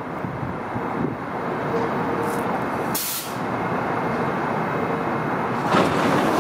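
R68 subway train standing at the platform with a steady rush of noise from its running equipment. A short hiss of air comes about three seconds in, and a louder burst of air hiss near the end.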